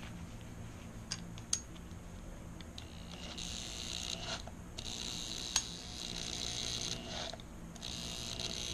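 Electric drill running in three short bursts at the bicycle's rear hub and sprocket: a steady high whine lasting about a second, then about two seconds, then about a second and a half. Two light clicks come about a second in.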